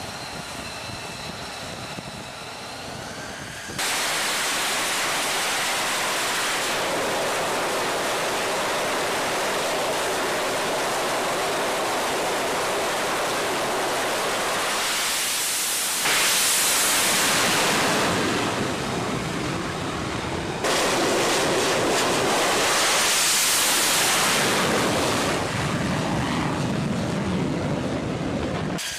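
F-35 fighter's Pratt & Whitney F135 jet engine running on a carrier flight deck. It starts as a fainter whine with rising tones, then a loud, steady rushing jet noise sets in suddenly about four seconds in, and its level shifts abruptly a few times where the footage is cut.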